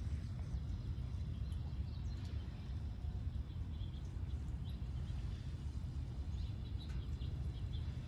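Outdoor ambience: wind rumbling on the microphone, with scattered faint bird chirps that come more often in the second half.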